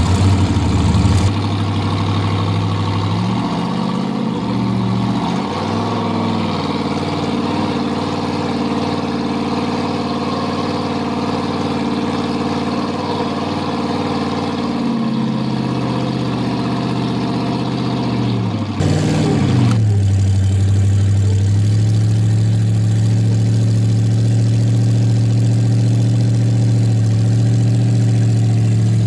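Rock buggy engine running under throttle while the buggy climbs a rock ledge. Its revs hold steady for long stretches, waver a few seconds in, then drop in pitch and get louder about two-thirds of the way through.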